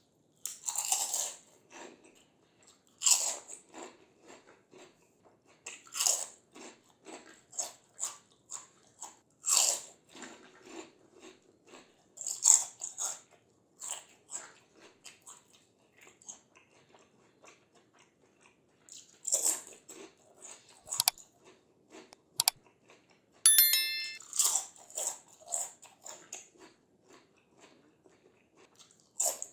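Close-miked biting and chewing of crispy fried snacks (papad and kachri fryums): loud crunching bites every few seconds, each followed by quieter chewing crunches. A brief sharp click and a short quick rattle come about two-thirds of the way through.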